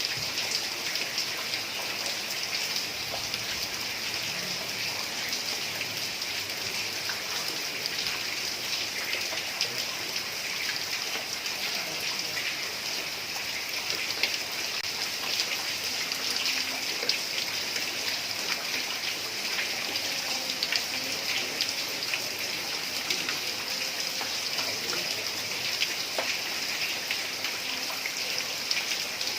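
Heavy rain falling steadily on a tiled roof: an even, dense hiss of countless drop impacts.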